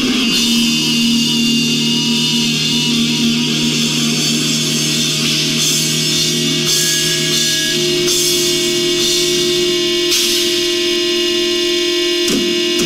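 Heavy metal music with long, held electric guitar notes that ring and shift pitch a few times.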